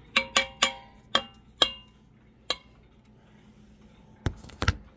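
Metal utensil clinking against the stainless steel inner pot of an Instant Pot, about six short ringing clinks over the first two and a half seconds. Two dull knocks follow near the end.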